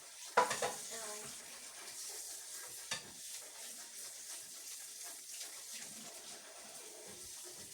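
Tap water running into a kitchen sink during washing up, with a loud clatter about half a second in and a smaller knock about three seconds in.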